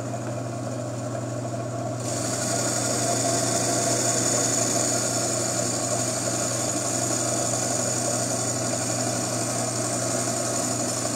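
Gryphon C-40 wet diamond bandsaw running with a steady motor hum. About two seconds in, a steady higher grinding noise joins it as the blade starts cutting through the sheet glass.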